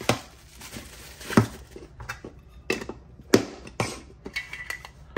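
Metal Funko Soda cans being handled on a tabletop: several sharp, irregular knocks and taps as cans are picked up and set down. A soft plastic rustle runs under the first second or so.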